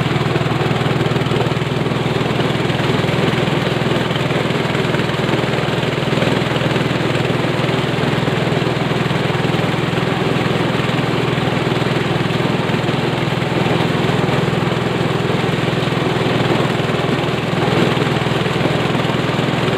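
Engine-driven mechanical corn sheller running steadily under load, a constant motor drone mixed with the rattle of ears being shelled.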